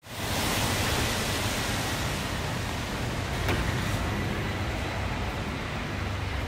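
Steady outdoor traffic noise on a wet road: a low rumble of vehicles under an even hiss, fading in at the start, with a faint click about halfway through.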